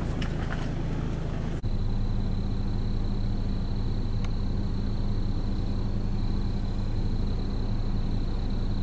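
An idling engine hums steadily, with a faint thin high whine above it. A few light clicks come at the start, and the sound breaks off and resumes about a second and a half in.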